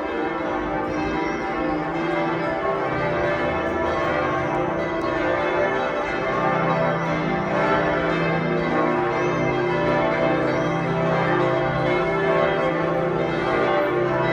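The bells of Florence Cathedral ringing together in a continuous peal, many overlapping tones at a steady level, calling the faithful to Sunday morning service.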